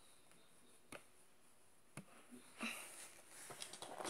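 Near silence broken by two faint sharp clicks about a second apart, then soft rustling and light knocks of handling toward the end.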